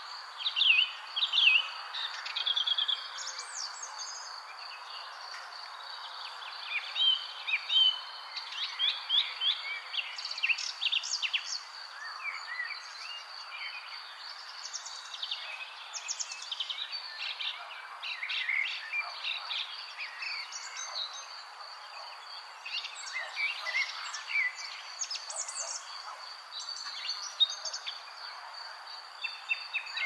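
Many small songbirds chirping and trilling in quick, overlapping calls over a steady soft wash of sea, with a thin constant high tone like an insect's drone.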